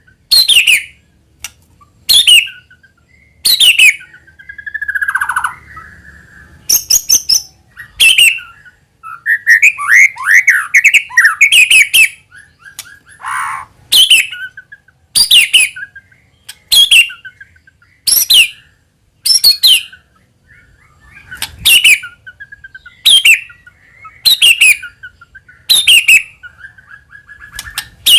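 White-rumped shama singing: short, sharp downward-sweeping calls repeated about every second and a half, broken by longer whistled, warbling phrases near the start and around the middle.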